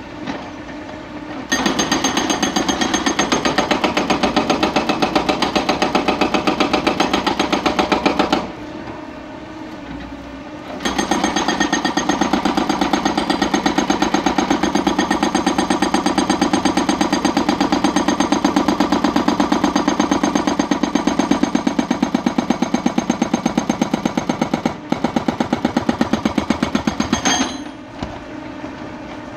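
Hydraulic rock breaker on a Hyundai crawler excavator hammering rock with rapid, even blows. It stops for about two seconds a third of the way in, resumes, and stops again near the end, with the excavator's engine running underneath in the pauses.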